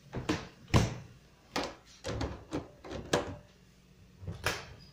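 A series of irregular knocks and thuds, about seven or eight, as things are handled in a kitchen; the loudest comes about three-quarters of a second in.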